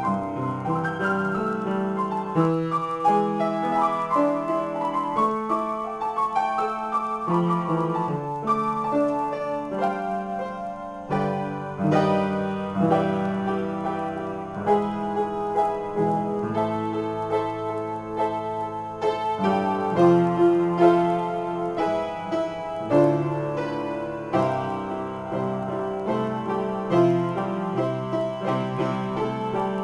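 Solo piano improvisation played with both hands: a continuous stream of chords and melody notes.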